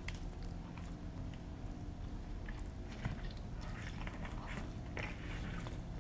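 Close-miked chewing of pizza, with soft wet mouth smacks and small crunchy clicks scattered throughout, over a faint steady hum.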